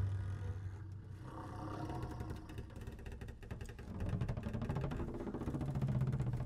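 Quiet passage of a contemporary chamber ensemble piece: a fast, pulsating ticking of bouncing mallets, joined about four seconds in by low double bass tones that grow louder.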